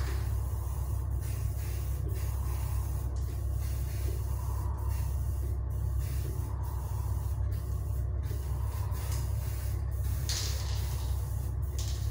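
Aerosol spray can of 1K lacquer hissing in one short burst about ten seconds in and starting again right at the end, over a steady low hum.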